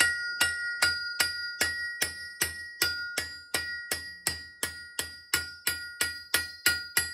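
Light, evenly paced hammer taps, about two and a half a second, each with a bright metallic ring, on a block held over a knife handle with its tang set in a vise: driving the keyhole bolster and handle block together along the tenon.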